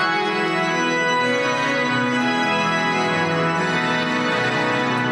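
Cathedral pipe organ playing slow, sustained chords, many notes held together over a steady bass.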